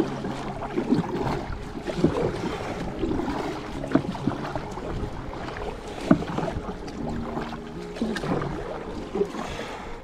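Kayak paddle strokes splashing into the water, roughly one every two seconds, over the steady wash of water along a sit-on-top kayak's hull.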